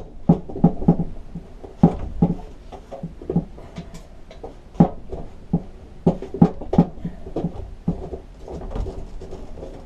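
Irregular light clicks and knocks of metal on the mower deck as the engine's mounting bolts are threaded in by hand from underneath.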